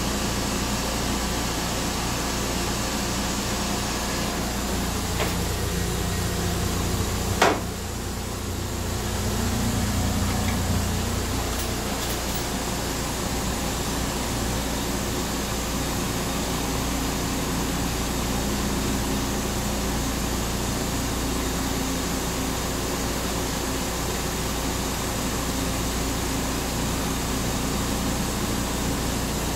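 Steady hum and rush of a Metro-North Comet II passenger coach, heard inside its small stainless-steel restroom. One sharp knock comes about seven and a half seconds in.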